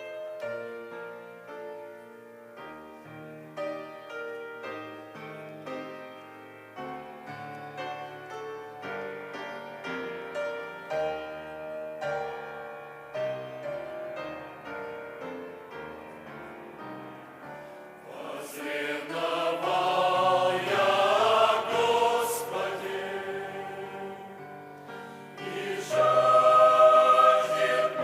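Piano playing a slow introduction; a choir enters singing about two-thirds of the way through, swelling, then rests briefly and comes back louder near the end.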